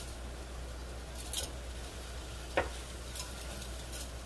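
A few light clicks and taps from bread and utensils being handled on a flat iron griddle pan, over a steady low hum.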